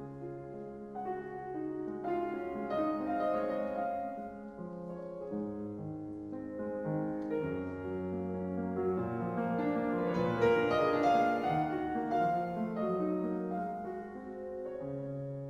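Slow piano music with held chords that change every second or two, growing louder about two thirds of the way through and then easing off.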